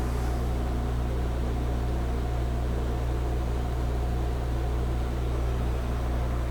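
Metal lathe running with a steady low hum while taking a light finishing facing cut.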